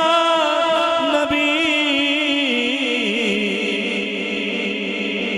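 A man singing devotional Punjabi verse into a microphone, stretching a long held note with wavering, ornamented turns of pitch instead of words, amplified through a public-address system.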